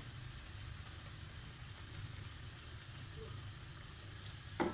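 Potato and onion pakoras frying in hot oil in a wok: a steady sizzle, with a single knock near the end.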